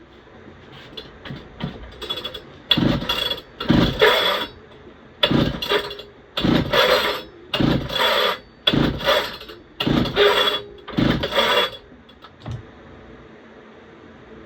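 Recoil starter of a 66cc Pioneer P-41 chainsaw pulled about eight times in quick succession, each pull a short rasping burst; the engine turns over without firing. The recoil is a little sticky.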